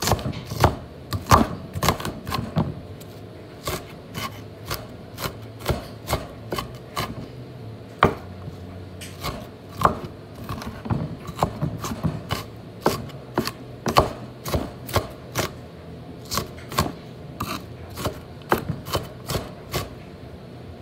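Kitchen knife chopping onion on a wooden cutting board: sharp knocks of the blade on the board, about one or two a second, with a few quicker runs.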